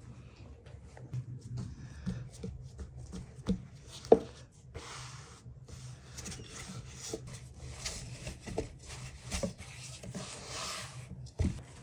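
A long thin wooden rolling pin rolls out a ball of dough on a floured wooden board. It makes soft rubbing sweeps back and forth, with a few knocks of wood on wood; the sharpest comes about four seconds in.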